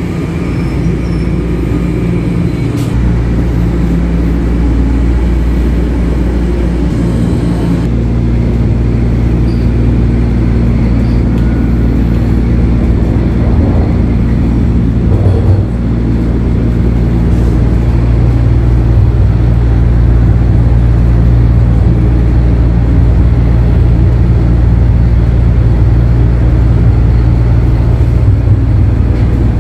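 Toronto Rocket subway train running between stations, heard from inside the passenger car: a steady, loud rumble with a low motor hum, slowly growing louder.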